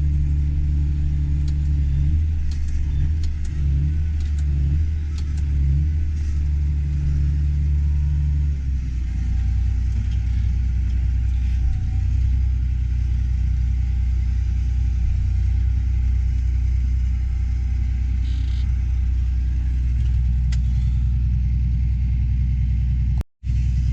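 Tractor engine pulling a grain cart, a steady low drone; its note shifts about nine seconds in and then holds steady. The sound cuts out for an instant just before the end.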